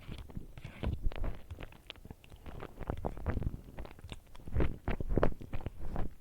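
Close-miked chewing and wet mouth sounds of someone eating, with irregular short smacks and clicks, louder for a stretch a little past halfway.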